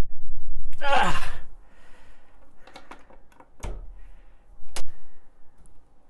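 A man groans with effort, pulling against a door held shut by an electromagnetic lock. About three and a half seconds in there is a thunk from the door, and a second later a sharp click as it comes free and opens.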